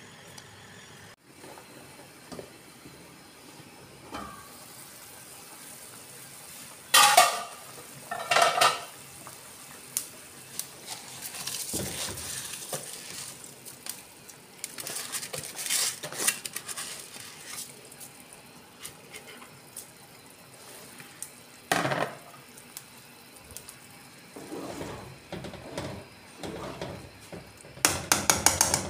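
A metal spoon clanking against a steel cooking pot: two sharp strikes about a quarter of the way in, another later, and a flurry of clatters near the end. Between them there is a soft hiss as soaked rice goes into the simmering stock and is stirred.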